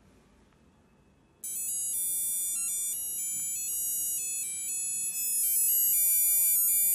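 Electronic alarm melody from a 7-colour LED digital alarm clock's built-in speaker. It starts about a second and a half in: a loud, high-pitched tune of quick stepped notes.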